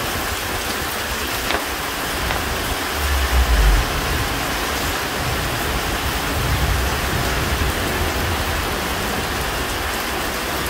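Steady rain falling, with low rumbles twice, about three and six and a half seconds in.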